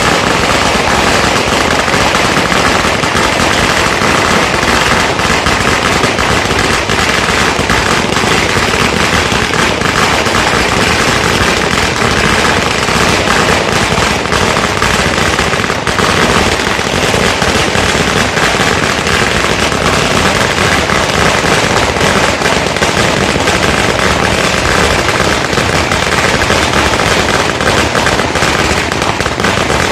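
Firecrackers going off in a loud, dense, unbroken crackle of rapid bangs.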